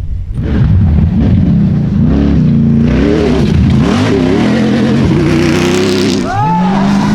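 Rally-raid competition engine at full throttle, its note climbing and dropping repeatedly through gear changes and over rough ground. A sharp new rise in pitch comes near the end.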